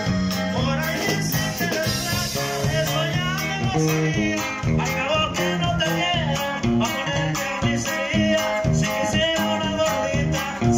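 A live band plays with accordion, electric guitar and drums over a steady, even beat.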